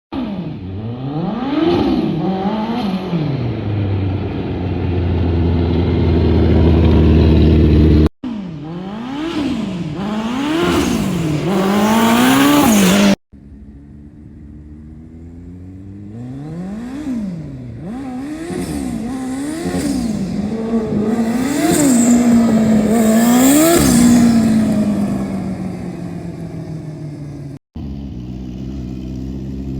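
Turbocharged Suzuki Hayabusa inline-four in a go-kart, revved in quick repeated blips: the pitch climbs and falls each time, with turbo hiss on the revs, and it settles back to idle between bursts. The sound breaks off abruptly three times and picks up again.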